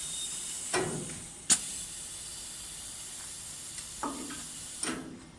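Automatic wood-turning lathe: a steady hiss with a handful of knocks and clunks, the sharpest about a second and a half in.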